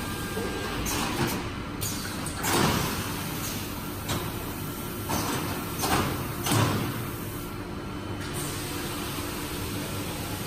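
Melamine short-cycle hot press line running with a steady machine hum, broken by about five short hissing bursts; the loudest come about two and a half seconds in and again about six and a half seconds in. The panel is being conveyed out of the press at this point.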